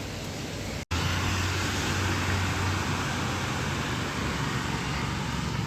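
Road traffic running steadily past, a continuous hum and rush of vehicles. The sound drops out for an instant about a second in, then comes back a little louder.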